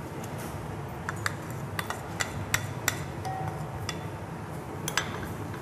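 Light, scattered clinks and taps of a small bowl and spoon against a glass cooking pot as tapioca starch is tipped and tapped out into the liquid, about a dozen sharp ticks in all. Faint background music runs underneath.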